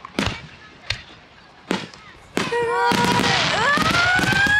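Aerial fireworks bursting: three sharp bangs about three-quarters of a second apart. Then, a little over two seconds in, a loud, dense crackling barrage begins, with several whistling tones gliding upward over it.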